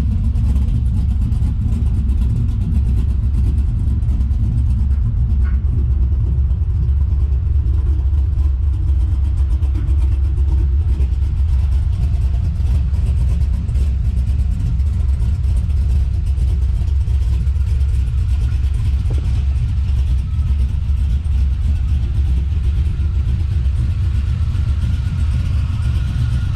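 Chevrolet Silverado's swapped-in LQ4 6.0-litre V8 idling with a steady, deep exhaust rumble.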